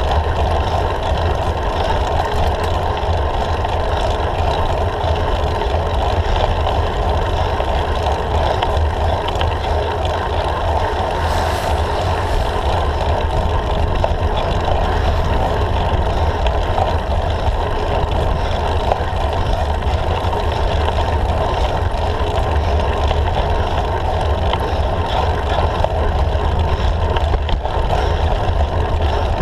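Steady wind rumble and road noise on the microphone of a handlebar-mounted camera as a road bike climbs at riding speed.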